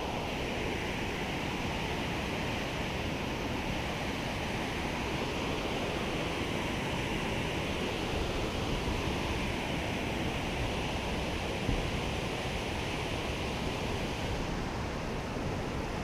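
River current rushing over and around boulders, a steady wash of moving water.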